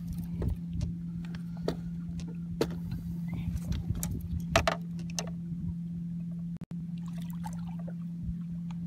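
A steady low mechanical hum aboard a small fishing boat, with wind rumbling on the microphone and scattered knocks and clicks from rod and hull as a striped bass is brought up and lifted over the side.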